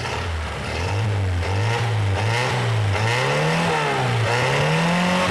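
Warmed-up car engine, freshly rebuilt with three oil rings on each piston and no compression rings, revved up and down several times while parked, rising and falling in pitch.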